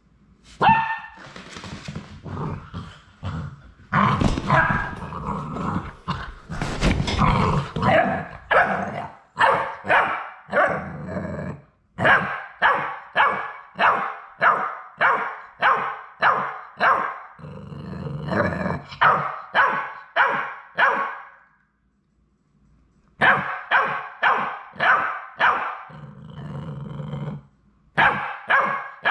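Yellow Labrador retriever puppy barking in repeated runs of short, high barks, about two a second, broken by brief pauses.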